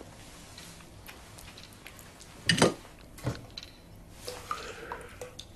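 A man eating a custard-dipped fish finger and then drinking custard from a bowl: soft wet mouth and chewing noises with small clicks, and two sharp noisy sounds about two and a half and three and a quarter seconds in. A faint low hum comes in near the end.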